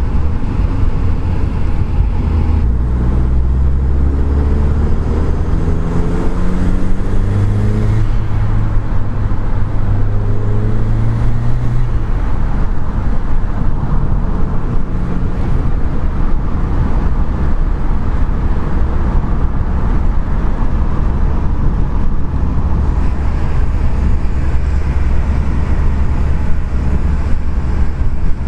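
Audi TT 8N's 1.8-litre turbocharged four-cylinder heard inside the cabin, its revs rising for several seconds about three seconds in. After that, a steady low rumble of engine, tyres and wind while driving on.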